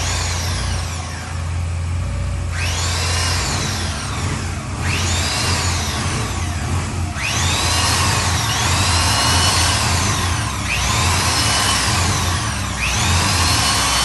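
Cordless electric drill driving the trapezoidal lead screw of a motorcycle lift. It is pulsed on and off, its pitch climbing and sinking again about every two seconds, over a steady low hum.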